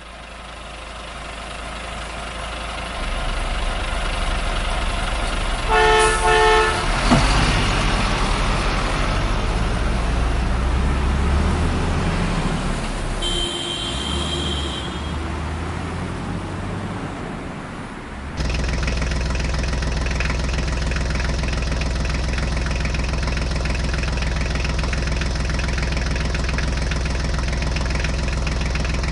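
Truck engine sound running, building up over the first few seconds, with a horn honk about six seconds in and a second short horn tone around thirteen seconds. At about eighteen seconds it switches abruptly to a steady idling engine.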